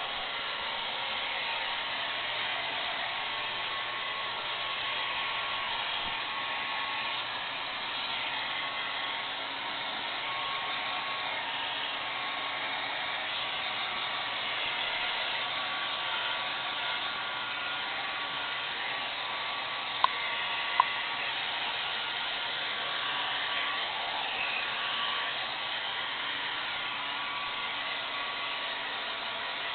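Hair dryer running steadily on a cat, a continuous blowing hiss with a faint steady whine. Two sharp clicks come close together about twenty seconds in.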